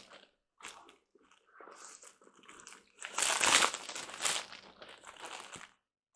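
Packaging being handled while a camera is unboxed: irregular crinkling and rustling, loudest about three seconds in.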